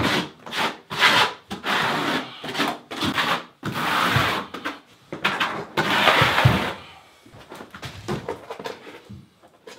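Rough scraping and rubbing strokes with knocks between them, from tools worked on a plywood subfloor: four longer strokes in the first seven seconds, then fainter light taps.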